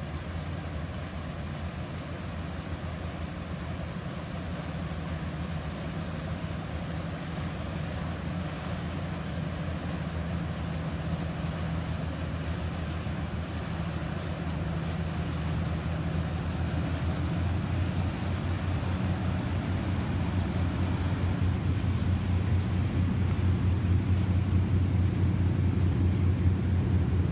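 Motorboat engines running at low speed as fishing boats pass through a canal: a steady low drone that grows steadily louder as the nearest boat approaches.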